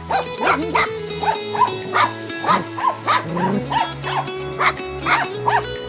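Indian Spitz puppy barking in short, high yaps, two or three a second, over background music with a steady beat.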